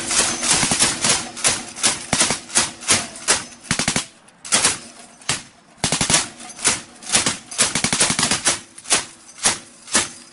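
Machine-gun fire: a long string of shots, about three a second in uneven runs. It breaks off briefly about four seconds in and again a little after five seconds, then stops.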